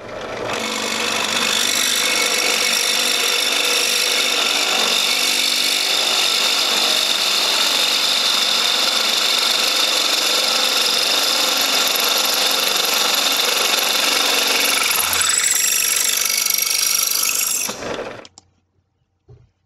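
Central Machinery 8-inch 5-speed bench drill press boring through steel square tubing, a steady high-pitched screech of the twist bit cutting metal over the running motor. The sound changes a few seconds before it stops suddenly near the end.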